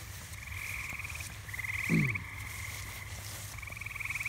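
Frogs calling in a night chorus: pulsing trills, each about a second long, repeating one after another. About two seconds in, a short louder sound slides down in pitch.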